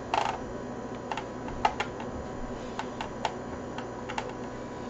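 Small screwdriver and screws clicking and tapping against the plastic underside of a Lenovo ThinkPad T430: a short scratchy sound at the start, then a handful of scattered sharp clicks.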